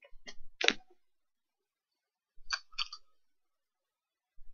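Small sharp clicks from a metal tube mod and its battery being handled: a few in the first second, then a quick cluster of clicks about two and a half seconds in.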